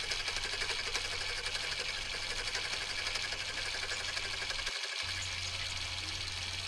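A slitting saw on a small milling machine spinning and cutting the slot into a steel screw head, a steady run with a fast, even chatter from the saw teeth.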